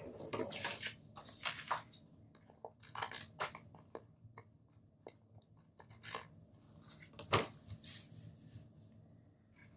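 Paper rustling and short scrapes as hands lift and shift the pages of a disc-bound planner, with a sharp tap about seven seconds in.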